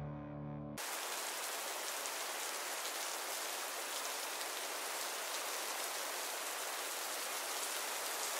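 Background music that cuts off under a second in, then a steady, even hiss with no pattern in it.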